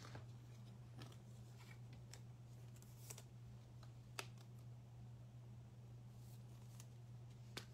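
Near silence with a steady low hum and a few faint clicks of trading cards being handled and sorted.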